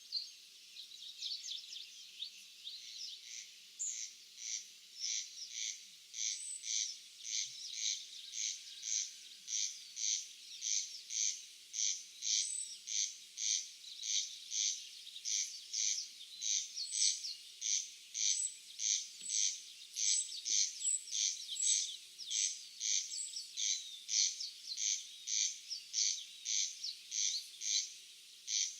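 A rhythmic, rasping animal call from the field, repeated nearly twice a second at a very even pace, which settles into its steady rhythm a few seconds in. Faint high bird chirps sound now and then over it.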